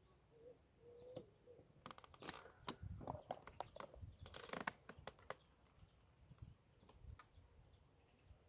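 Near silence broken by a scatter of faint clicks and rustles from handling fishing tackle close to the microphone, busiest from about two to five seconds in.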